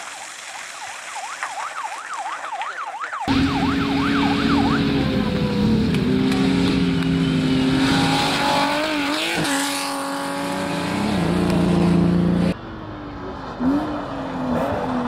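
Rally cars at full throttle on a special stage: an engine revving hard and passing close, its pitch dropping sharply as it goes by about halfway through, then another car's engine further off. It opens with a warbling whine that rises and falls about three times a second.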